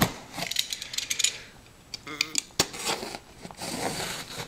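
A cheap knife scraping and slicing through packing tape on a cardboard box: a run of sharp clicks and scratchy scrapes.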